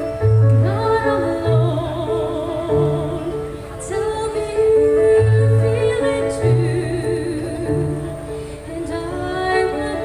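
Two women singing into microphones, with vibrato on held notes, over instrumental accompaniment with a low bass line, amplified through a stage sound system.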